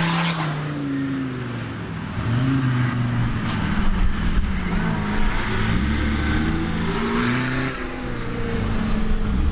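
Off-road 4x4 truck engines revving up and down, their pitch rising and falling again and again, with more than one engine heard at once.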